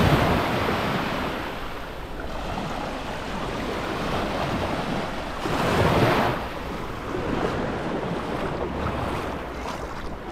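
Small waves breaking and washing up a sandy beach in shallow water, the surf swelling twice, about six seconds apart.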